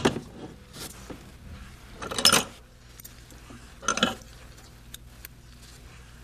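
Hard plastic knocks and clatters of a hair dryer being handled and set into its wall-mounted holder: a few short separate clatters about two seconds apart.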